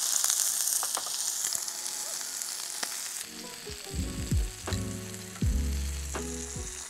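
Beef steak searing in hot oil in a cast iron pan: a steady, high sizzle with small spits and pops. About three seconds in the sizzle drops back and music with a low bass line comes in over it.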